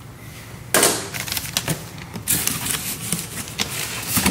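Clear plastic wrapping crinkling and cardboard box flaps rustling during unpacking, a dense run of crackles starting about a second in.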